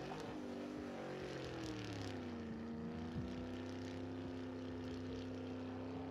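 A car engine's note falling as the revs drop, then settling into a steady drone.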